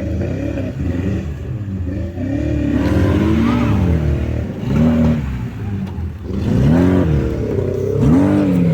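Off-road vehicle engine revving in repeated short bursts, the pitch climbing and dropping again every second or so over a steady low running note.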